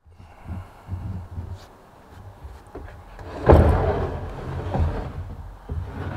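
A large flat printed box being handled on a table: a few light knocks, then a louder thump and scrape about three and a half seconds in, over a steady low rumble.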